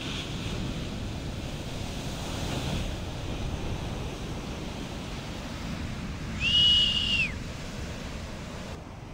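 Shore-break waves rushing and washing on the beach, with wind on the microphone. About two-thirds of the way in, a single high whistle is held for about a second, gliding up at the start and dropping off at the end.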